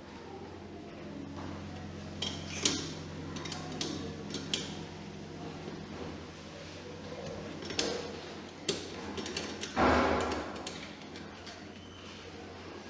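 Hard objects clinking and knocking now and then over a steady low hum, with a burst of rushing noise about ten seconds in, the loudest sound.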